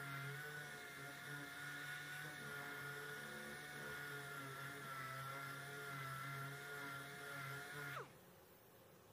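Random orbital sander with a dust-extraction hose running steadily with a high whine while sanding body filler on a car panel. About eight seconds in it is switched off and the whine falls away as it spins down.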